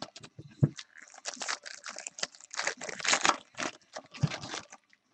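Baseball card packs being torn open and handled: foil wrappers tearing and crinkling in irregular crackles and rustles, with a couple of soft knocks.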